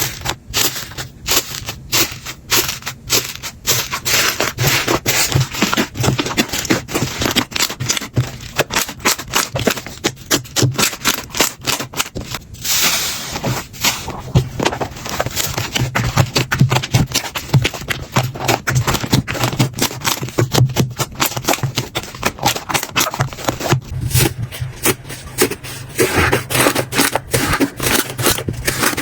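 Hands squeezing, pressing and poking slime, making a dense run of quick sticky clicks and pops. The sound changes abruptly about a third and again about four-fifths of the way through.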